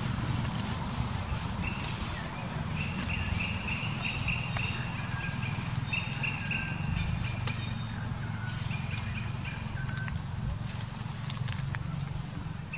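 Outdoor ambience: a steady low rumble, with a run of high, even-pitched chirping calls repeating over the first half and a few fainter ones later.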